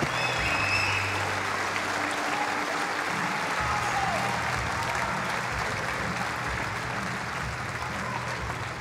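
Large crowd applauding steadily, with faint music playing underneath.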